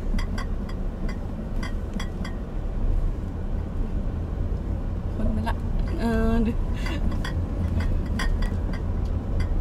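Inside a moving car: a steady low engine and road rumble, with scattered light knocks and rattles. A brief voice is heard about six seconds in.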